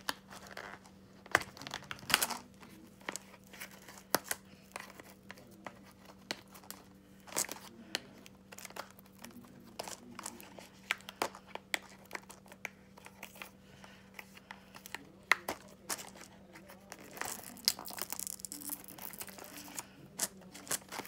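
Plastic shrink wrap on a cardboard box crinkling and crackling as fingers pick and tear at it, in scattered sharp crackles with a longer rustle about three-quarters of the way through.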